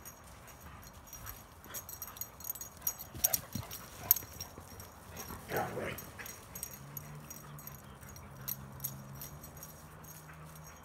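Dogs playing and running: scattered sharp clicks and light thuds, then a short dog whine or yip about halfway through. A low steady hum sets in soon after and runs on.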